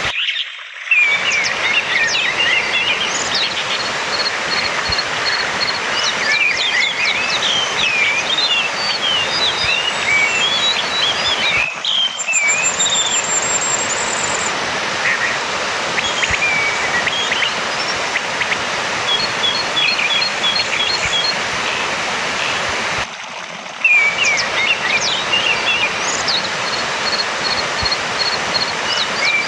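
Orange-headed thrush song: a continuous run of varied chirps and whistled phrases with short, rapid trills of repeated notes, over a steady background hiss. The sound cuts out briefly three times: near the start, around the middle and about three-quarters through.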